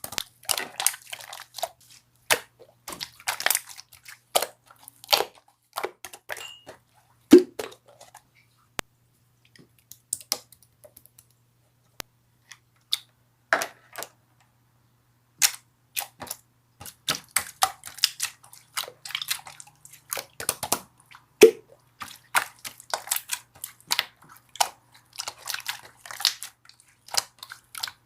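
Slime being squeezed and poked by hand: rapid, irregular clicking and popping of trapped air, with a few seconds of near pause in the middle.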